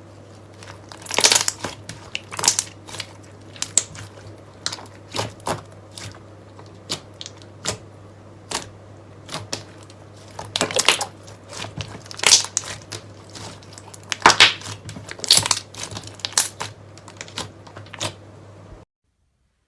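Slime being squished and pressed, giving irregular sticky crackles and pops of uneven loudness; the sound cuts off abruptly near the end.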